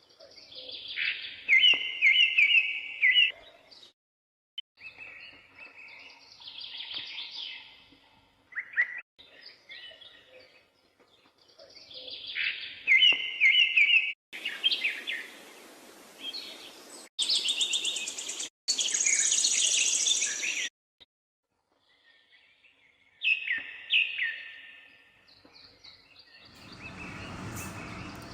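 Birds chirping and calling in short phrases, broken by abrupt cuts; a steady hiss comes in near the end.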